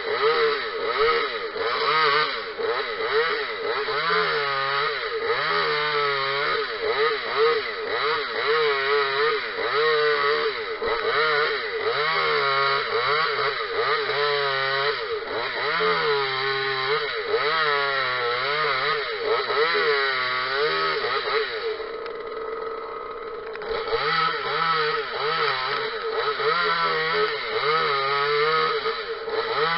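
Parker 26cc top-handle chainsaw, a small two-stroke, revving up and down about once a second as it cuts eucalyptus branches. About two-thirds of the way through it drops back to a lower idle for a moment, then revs up again.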